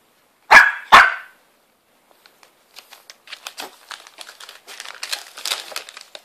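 Shih Tzu puppy barks twice, sharply, about half a second apart, begging for a treat. From about halfway in, a plastic treat pouch crinkles in quick irregular crackles that grow busier toward the end.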